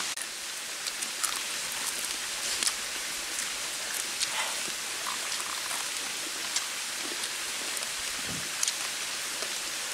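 Steady background hiss with scattered small clicks and taps as two people eat with their hands; a brief murmured hum of a voice about eight seconds in.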